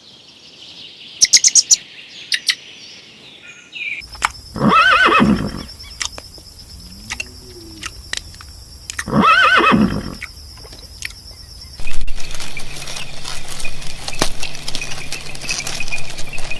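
Horse neighing twice, about four seconds apart. Each neigh is a loud, wavering, pitched call lasting about a second.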